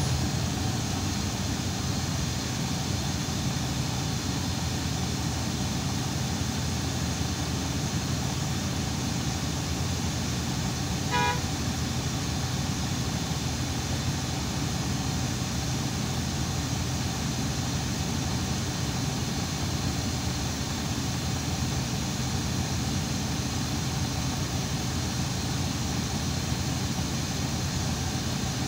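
Irisbus Citelis 12 m city bus running, a steady drone of engine and road noise with a low hum. One short, pitched beep sounds about eleven seconds in.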